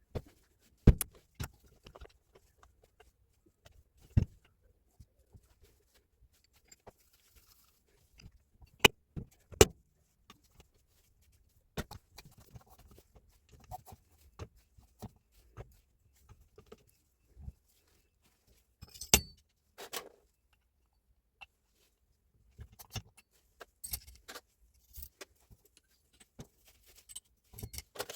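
Irregular sharp metallic clicks, clinks and knocks of small parts and hand tools being handled while working on a rotary hammer, with a few louder knocks standing out.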